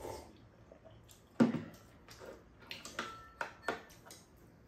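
Tableware sounds during a meal: a few short knocks and clinks of spoons and ceramic bowls on the table, the loudest about a second and a half in, one with a brief ring.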